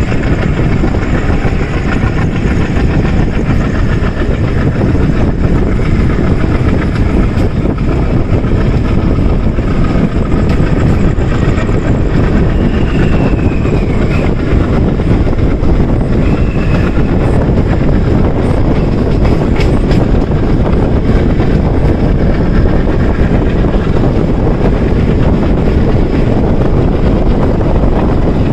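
Express passenger train running at speed, heard from aboard: the steady, loud rumble of the coach's wheels on the track.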